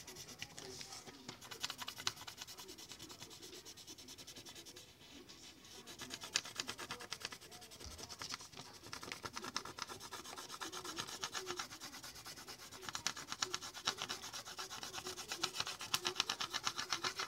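Rapid back-and-forth colouring strokes on paper, a steady scratchy scribbling that thins out for a moment and then gets faster and denser in the second half.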